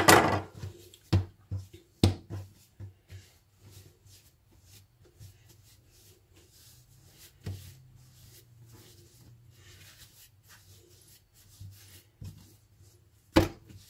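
Hands working bread-roll dough on a floured worktop while dividing it into pieces, with soft rubbing and handling noise. A few sharp knocks against the counter, the loudest near the end.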